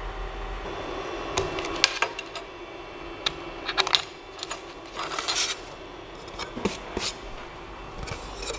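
Creality CP-01's CNC spindle running with a steady whine, stopping about a second and a half in. Then come scattered light clicks and knocks as the hold-down clamps and the engraved wooden board are handled and lifted off the bed.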